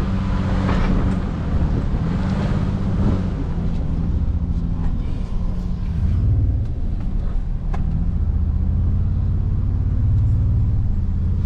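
Toyota Tundra pickup's engine running low and steady at crawling speed, heard inside the cab on a rough dirt trail. A single light knock comes about three quarters of the way through.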